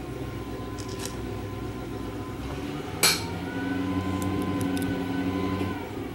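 Boat engine idling outside, a steady low hum that grows a little louder after about three seconds. A single sharp click comes about three seconds in.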